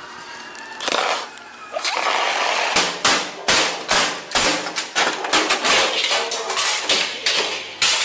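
A siren wails in the first second or so. Then, from about three seconds in, come rapid loud bangs, about two or three a second: a fist pounding on apartment doors, over the building's fire alarm sounding.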